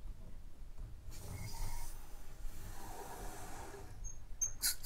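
Faint hiss of water flowing as the supply is turned on to a Wilkins 975XL reduced-pressure backflow assembly, with a few short sharp sounds near the end.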